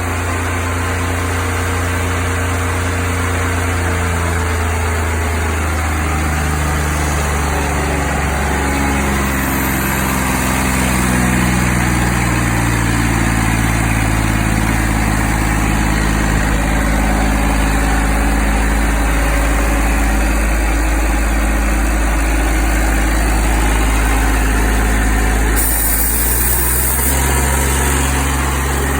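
Diesel engine of a 55 CFM rotary screw air compressor running steadily on test. Its pitch shifts a few seconds in and again near the end, where a brief high hiss is heard.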